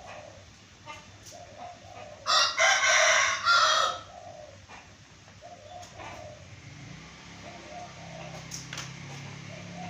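A rooster crows once, about two seconds in, for about a second and a half, with softer short clucks before and after. A low steady hum comes in near the end.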